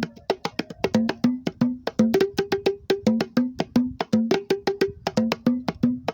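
Homemade wooden box drums (cajones built to stand in for conga or batá drums) played by hand in a quick, repeating rhythm of about six strokes a second. The strokes alternate between a low tone and a higher tone.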